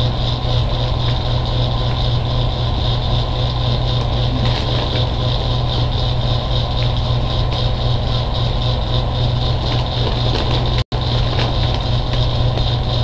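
Steady low hum with a few faint crunches of popcorn being chewed; the sound cuts out for an instant about eleven seconds in.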